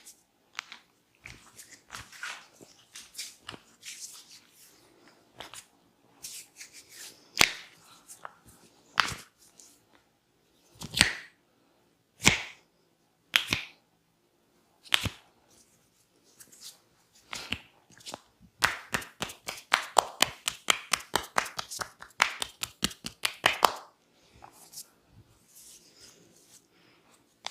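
Hands slapping and patting on skin during a body massage: scattered single slaps, then a quick run of rapid strokes, about six a second, for some five seconds before it tails off.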